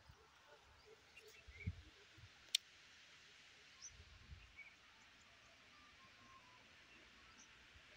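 Near silence: faint outdoor ambience with one sharp click about two and a half seconds in and a couple of soft low thumps.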